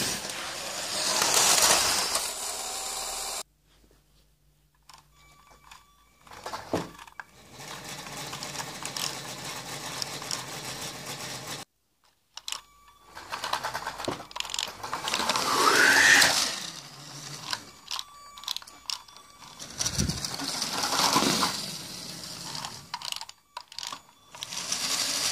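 Motorised LEGO toy trains running on plastic track: a small electric motor whirring with wheel and track rattle, broken by a few sharp knocks. The sound cuts off abruptly a few times.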